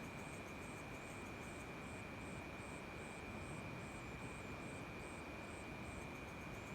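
Night insect chorus after rain: a steady, unbroken high trill with a cricket chirping above it about twice a second, over a faint hiss.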